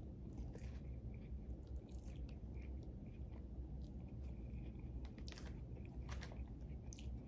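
A man chewing and biting food, faint irregular mouth clicks and smacks every fraction of a second.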